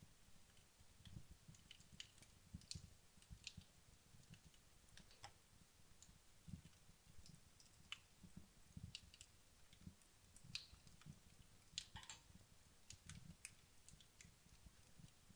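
Wood logs burning down in a fireplace: faint, irregular crackles and small pops from the fire, with the sharpest ones clustered about twelve seconds in.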